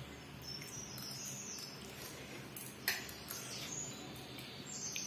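Spoon clicking once against a steel plate about three seconds in, over faint high chirping and quiet room noise.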